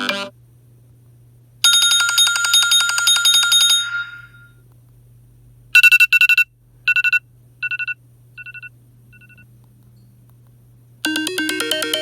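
iPhone 12 mini ringtones played one after another, with short silences between them. A rapid trill on a fixed tone is followed by a two-note beep repeated six times, each quieter than the last. Near the end a new melodic ringtone begins.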